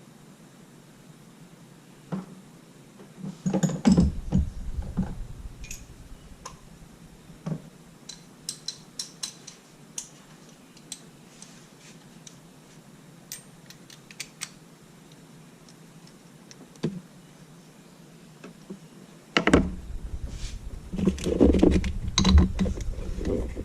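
Hand tools and parts clinking and knocking in irregular light metallic clicks, with a quick run of ticks about a third of the way in. Two stretches of heavier bumping and rustling: one early, and a louder one from near the end.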